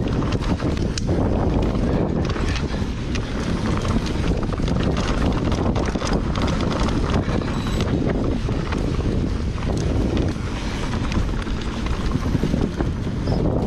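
Wind buffeting the microphone over the rumble of a full-suspension mountain bike, a Santa Cruz Megatower, riding fast down a dirt bike-park trail, with frequent small knocks and rattles from the bike over rough ground.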